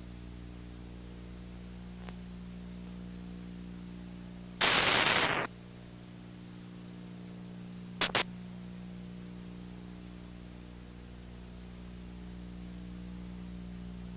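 Steady electrical hum with hiss from the transfer of old, silent film footage, broken by a loud burst of static lasting nearly a second about four and a half seconds in and two short crackles around eight seconds in.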